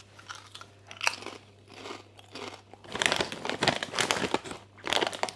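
A person biting into and chewing thin Lay's potato crisps, crunching irregularly. The crunches begin about a second in and come thicker and faster from about three seconds.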